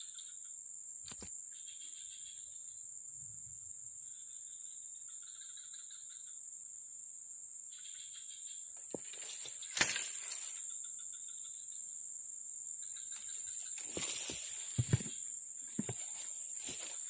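Steady high-pitched drone of insects, with shorter pulsing calls coming and going beneath it. A few sharp knocks and rustles come in the second half.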